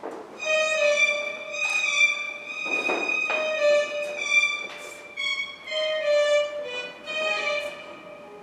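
Solo violin playing a slow melody of long held notes, with a few short noisy sounds in between.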